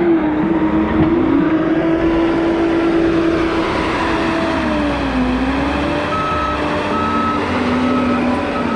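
John Deere 331G compact track loader's diesel engine running under load, its pitch sagging twice as the machine pushes into the dirt. About six seconds in, its backup alarm starts beeping in short, evenly spaced beeps.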